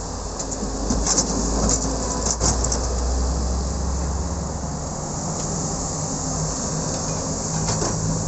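Doosan wheeled excavator's diesel engine working steadily under hydraulic load as the machine dumps and digs. In the first few seconds a load of soil and clods clatters into a dump truck's steel bed, then the engine note shifts as the boom swings back.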